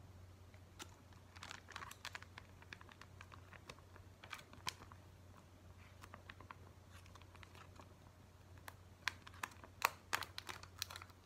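Plastic seasoning sachets crinkling as they are handled, shaken and torn open, in scattered crackles that grow denser and louder near the end.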